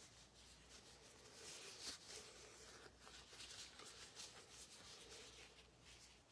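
Near silence: faint room tone with a low hum and a few soft, faint rustles.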